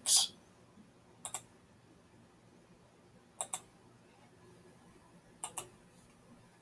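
Computer mouse clicking: a short hiss at the very start, then three quick pairs of sharp clicks about two seconds apart.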